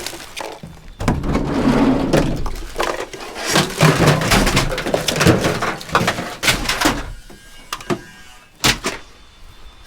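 Rummaging through a pile of discarded electronics and junk: several seconds of clattering and rustling with many sharp knocks as items are pulled about, easing off near the end, with one sharp knock shortly before it ends.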